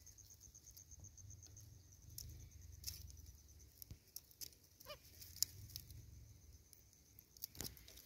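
Near silence: faint rustles and scattered clicks, with a faint high rapid pulsing in the first couple of seconds.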